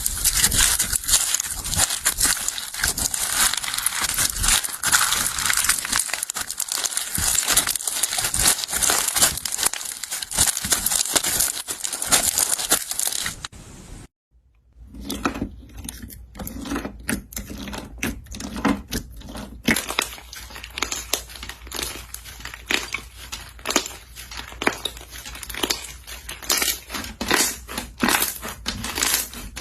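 Slime being squeezed and poked by hand, making a dense crinkly crackling. After a short break about halfway through, it turns into sparser separate crackles and pops.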